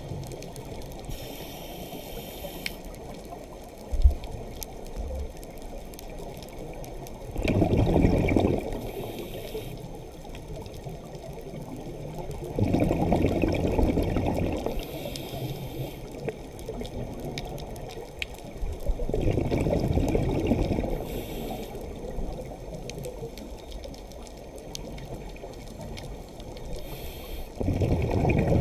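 Scuba diver breathing through a regulator, heard underwater through the camera housing: four rushing bursts of exhaled bubbles, every six or seven seconds, with a faint high hiss between them over a steady low underwater rumble. A single sharp knock about four seconds in.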